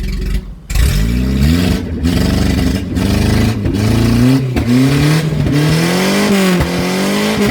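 Pickup truck engine revved again and again, its pitch rising and falling in a string of revs after a brief lull about half a second in.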